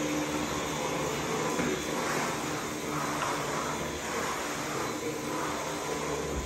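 Steady whirring hum of a household motor or fan. Over it, from about two seconds in, come soft, regular taps of a chef's knife chopping bell pepper on a plastic cutting board.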